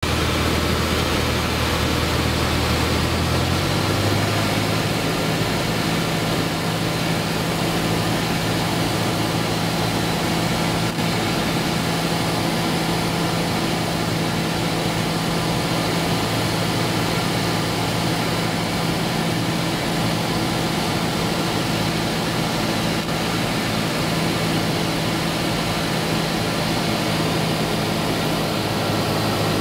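Aircraft engine and airflow droning steadily inside the cabin on final approach to landing, the engine note stepping up in pitch about four seconds in.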